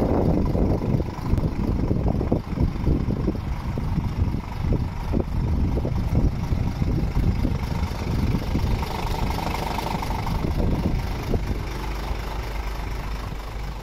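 Scania R450 truck's 13-litre six-cylinder diesel idling steadily.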